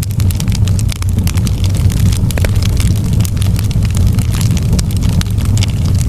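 Fire in a fireplace crackling, with frequent sharp pops and snaps over a steady low rumble.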